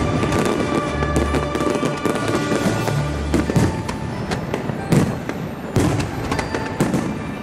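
Aerial firework shells bursting overhead: a string of quick pops and crackles, with louder single bangs about five, six and seven seconds in, over background music.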